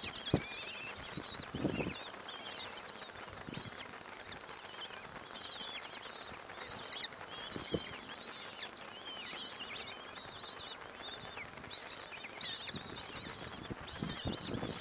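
Common kestrel chicks making many short, high, wavering begging calls at feeding time, with a few scattered knocks and scuffles of movement in the nest.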